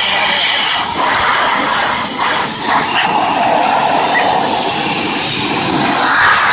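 High-pressure steam jet from an electric steam cleaning machine hissing steadily, with two brief dips a little over two seconds in.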